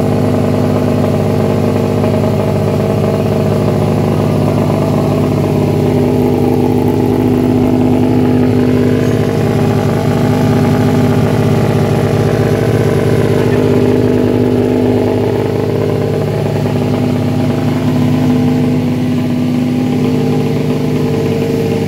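A race-prepared underbone motorcycle's engine running steadily at a held idle, with only slight changes in speed.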